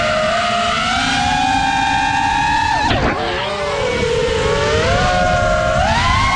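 FPV quadcopter's electric motors whining, the pitch rising and falling with the throttle. About three seconds in the throttle is chopped: the whine drops sharply, then climbs back as the throttle is punched again. Wind rumble on the microphone sits underneath.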